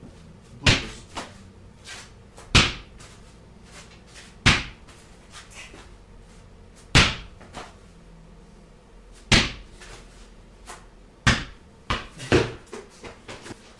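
Small inflated lawn tractor tire on its steel rim being bounced on a concrete floor: a run of about seven loud thuds roughly two seconds apart, some followed by a smaller rebound, with a quick cluster of bounces near the end.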